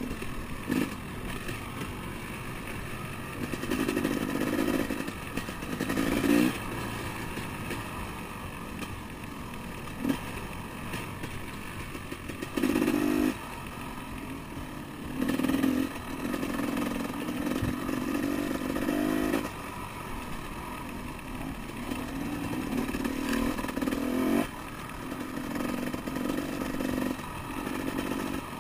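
Enduro motorcycle engine running under way on a dirt trail, opened up in short bursts of throttle every few seconds between steadier running.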